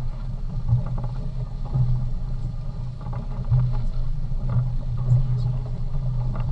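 A boat's engine running steadily, heard as a low hum, with scattered light knocks and clicks.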